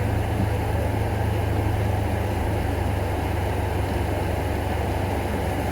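A farm vehicle's engine running steadily while being ridden, heard from aboard as a continuous low hum with road and mechanical noise.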